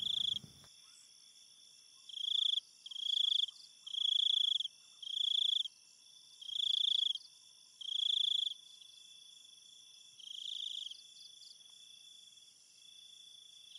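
Crickets chirping at night: high, pulsing trills about half a second to a second long, repeated every second or so with short gaps, over a faint steady high hiss.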